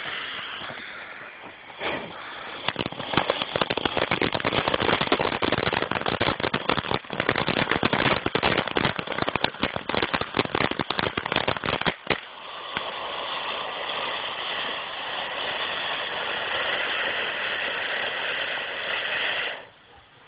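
A lit consumer firework: it starts with a hiss, breaks into about ten seconds of dense rapid crackling, then settles into a steady spraying hiss that cuts off suddenly shortly before the end.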